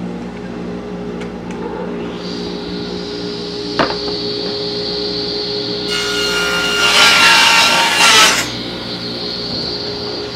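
Small table saw running with a high, steady whine over the hum of a dust blower. For about two and a half seconds in the second half, the blade rips through the edge of a glued-up chestnut oak panel, trimming it square, and this cut is the loudest part.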